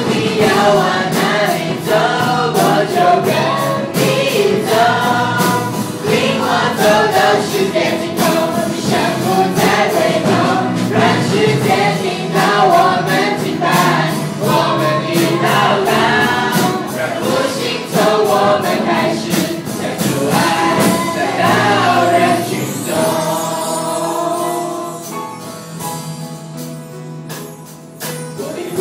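A small group of young singers singing a Christian worship song together into microphones. Near the end they hold a long note that fades.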